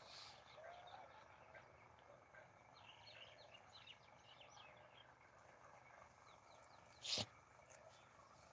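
Near silence with faint, distant bird chirps, a run of short high calls in the middle. A single sharp knock about seven seconds in.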